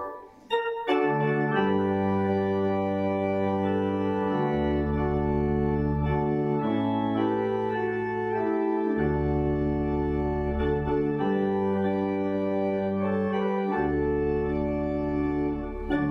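Organ playing full sustained chords over a bass line whose notes change every second or two, coming in about a second in after a brief chord and pause.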